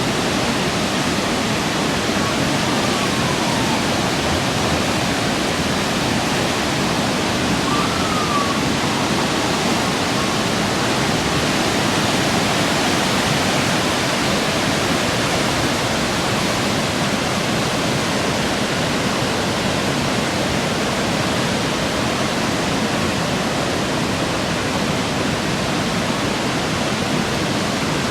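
Steady rush of fast-flowing floodwater, even and unbroken, with two faint short whistling glides about three and eight seconds in.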